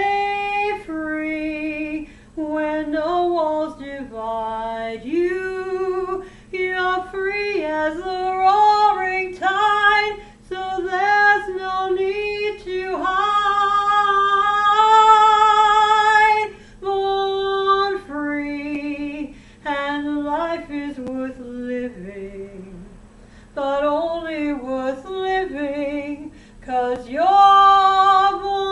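A woman singing a slow ballad solo and unaccompanied, in a full voice with vibrato. She holds a long note in the middle and swells into another long held note near the end.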